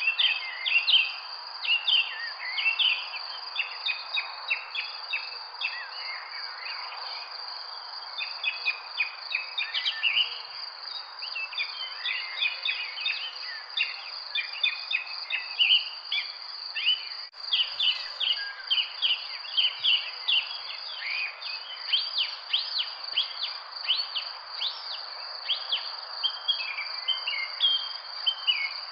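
Many birds chirping in a dense chorus of short, quick calls over a continuous high insect drone and a soft background hiss. A brief click sounds once, about seventeen seconds in.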